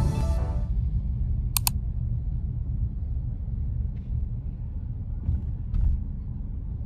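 Low, steady rumbling noise with a quick double click about a second and a half in and a few faint ticks later; background music fades out at the very start.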